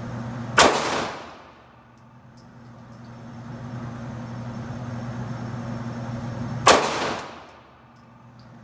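Two single handgun shots about six seconds apart, each a sharp crack with a ringing tail that echoes off the walls of an indoor range; a steady low hum runs underneath.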